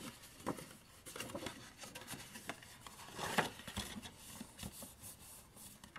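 Stiff white cardstock rustling, with soft scattered taps and clicks as hands handle the folded pieces on a craft mat; one slightly louder tap comes about three and a half seconds in.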